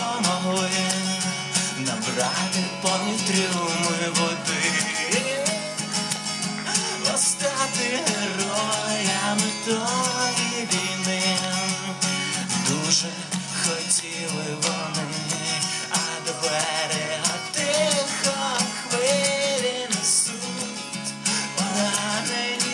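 A man singing while strumming a steel-string acoustic guitar.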